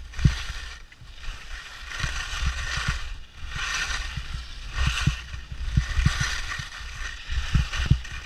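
Skis hissing and scraping over snow through a run of quick turns, the hiss swelling and fading about once a second, with scattered low knocks from the moving camera.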